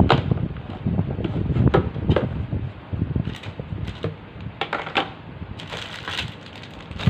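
Irregular knocks and clicks of plastic toy-kitchen pieces being handled, over a low rumble.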